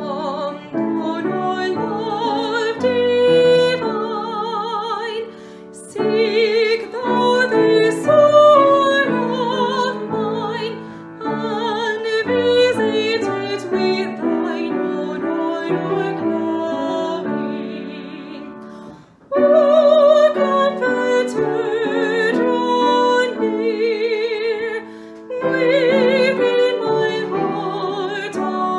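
A woman singing a hymn with vibrato to piano accompaniment, with brief breaks between phrases about five seconds in and again near twenty seconds.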